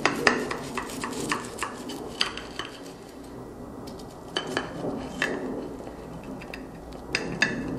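Knife slicing a grilled cheese sandwich on a plate: a run of clinks and scrapes of the blade against the plate over the first couple of seconds, then a few scattered clinks.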